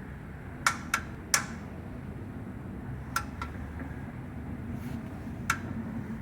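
Big-block V8 engine ticking after shutoff: six sharp, irregular ticks, three close together in the first second and a half, two more about three seconds in and one near the end, over a low steady background rumble.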